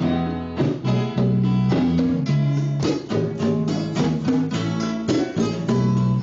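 Guitar music: chords strummed and notes plucked on a guitar in a steady rhythm.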